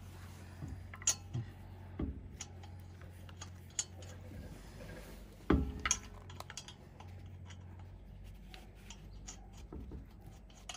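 Scattered metallic clinks and taps of steel lug nuts being handled and threaded by hand onto a car wheel's studs, with a louder clank about five and a half seconds in.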